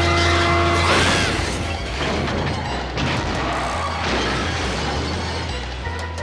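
Cartoon sound effects of a truck accident: a steady horn blast that breaks off about a second in, a short tyre screech, then a loud crash and clatter. Dramatic music with a deep low rumble plays throughout.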